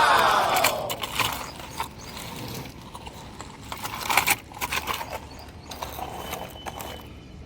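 Toy vehicles clicking and rattling as they are handled. It opens with a short pitched sound that rises and falls.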